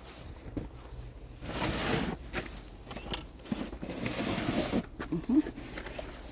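Footsteps crunching through snow, in two longer stretches of crunching hiss about a second and a half in and again from about three and a half seconds.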